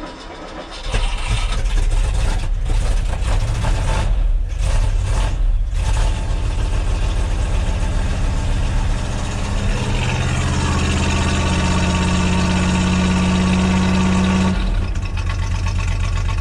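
The 1973 Ford F-250's 360 FE V8 starting from cold, heard from inside the cab. It catches about a second in and runs unevenly, stumbling for several seconds. It then runs steadily at raised revs under the throttle and drops back to a lower idle near the end.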